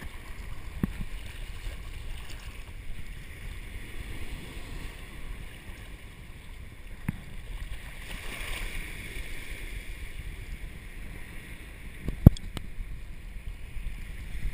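Wind buffeting the microphone of a camera held at the waterline, with shallow surf washing around it. A few sharp knocks come through, the loudest about twelve seconds in.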